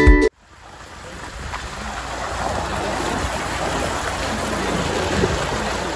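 Vehicle driving slowly along a flooded, muddy dirt track: tyres sloshing through water-filled ruts over the low sound of the engine. It fades in over the first couple of seconds and then holds steady.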